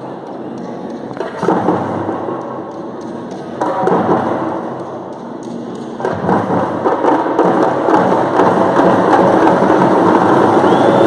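Several parai frame drums beaten fast with two sticks, the strokes coming in loud surges that settle into continuous drumming about six seconds in.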